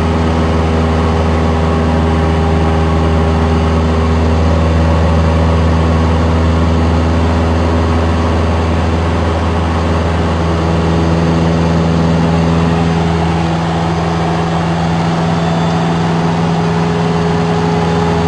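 Single-engine light aircraft's piston engine and propeller droning steadily, heard from inside the cabin, with the pitch mix shifting slightly about two-thirds of the way through.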